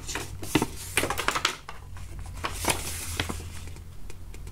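A folded paper instruction leaflet rustling and crackling as it is unfolded and handled, in irregular crisp rustles.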